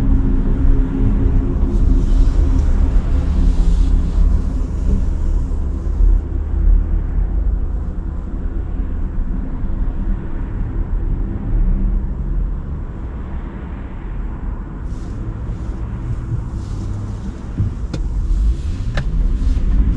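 Cadillac Lyriq electric SUV driving on wet streets: steady low road and tyre rumble with some hiss over the first few seconds, and two short clicks near the end.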